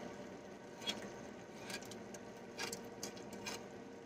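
Faint, irregular clicks and taps of a metal can of coconut milk against a stainless steel pot as the thick milk is emptied into it, over a faint steady hum.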